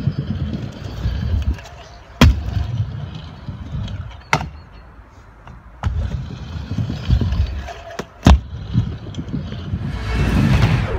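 Stunt scooter wheels rolling with a low rumble on the skatepark surface, broken by three sharp clacks of the scooter hitting the ground on landings, about 2, 4½ and 8 seconds in. A rushing noise swells near the end.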